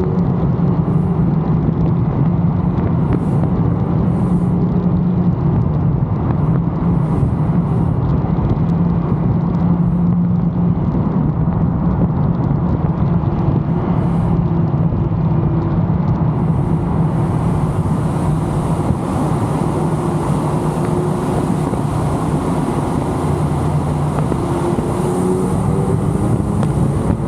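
Car engine running steadily while driving on the road, with tyre and road noise; the engine note drifts slightly up and down.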